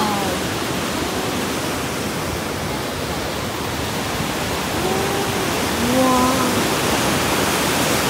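Huka Falls' whitewater on the Waikato River rushing through its narrow rock chasm: a steady, loud roar of fast-flowing water.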